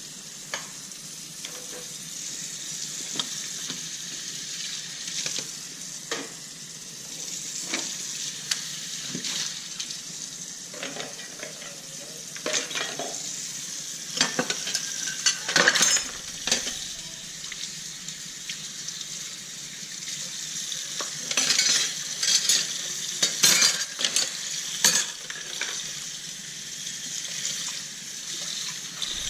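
Dishes being washed by hand at a sink: a steady hiss of running water with plates and cutlery clinking and clattering. Louder clatter comes about halfway through and again near the end.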